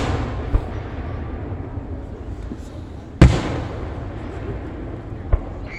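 Fireworks going off: a loud bang about three seconds in that fades into a long rumble, with smaller sharp pops shortly after the start and near the end, over the fading rumble of a burst just before.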